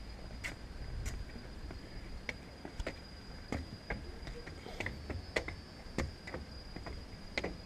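Footsteps climbing wooden stairs: irregular knocks of shoes on the timber steps, about one or two a second. A steady high-pitched insect drone continues behind them.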